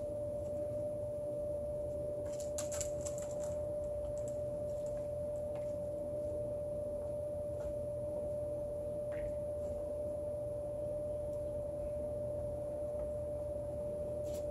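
A steady, single-pitched hum that holds unchanged throughout, with a few faint clicks about two to three seconds in.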